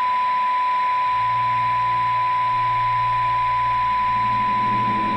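Steady 1 kHz test tone from a television showing colour bars after a videotape ends, over a light hiss. A low drone joins it about a second in.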